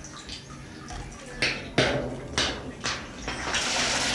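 A few sharp knocks, then a steady rush of water that begins about three and a half seconds in.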